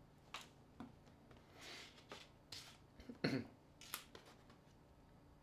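Faint clicks, taps and a scrape of small tools and metal and plastic phone parts being handled while a smartphone is pried apart to get at its battery, with the loudest knock a little past three seconds in.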